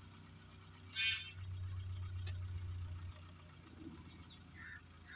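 Low steady hum of an idling vehicle engine, a little louder for a couple of seconds after the start, with a short high chirp about a second in.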